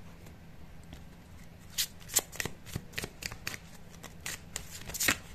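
A deck of oracle cards being shuffled by hand: a run of quick, irregular card snaps starting about two seconds in.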